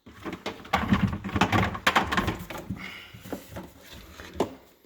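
Irregular knocks, clicks and rustling as plastic drain pipe parts are handled under a kitchen sink.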